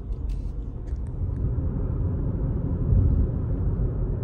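Car cabin road noise while driving: a steady low rumble of engine and tyres, with a louder low bump about three seconds in.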